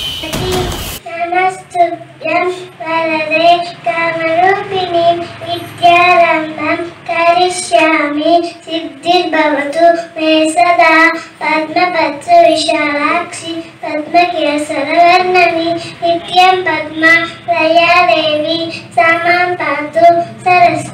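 A young girl singing solo into a microphone, with no accompaniment, a wavering melodic line broken by short breaths. A loud noisy crackle cuts off about a second in, just before the singing starts.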